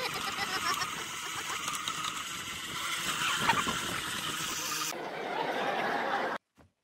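Ice auger's motor running steadily while the auger bit spins in its hole in the ice, with a few knocks. It cuts off abruptly about five seconds in, followed by a short different stretch and then near silence.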